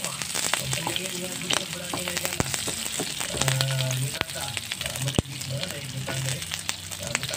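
Pork pieces, sliced onion and garlic sizzling in hot oil in a frying pan, with crackling pops and a wooden spatula stirring against the pan.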